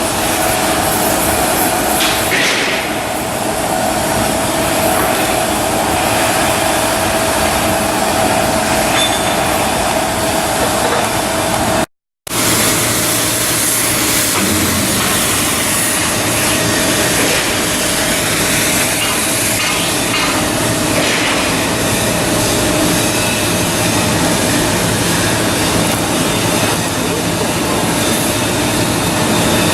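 Steady, loud shipyard machinery noise with a constant hum running through it. It breaks off for a moment about twelve seconds in, then carries on unchanged.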